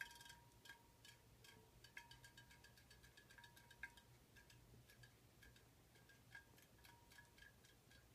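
Faint light clicks and clinks at an uneven pace over a faint steady high hum: a small robotic fish toy's motor running and its body tapping against the bowl.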